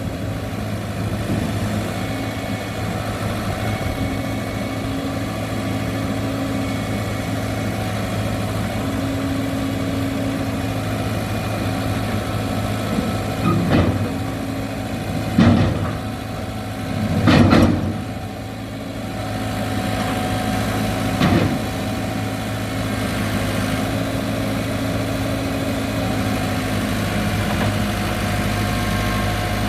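Caterpillar 313 excavator's diesel engine running steadily, with four short loud knocks about halfway through.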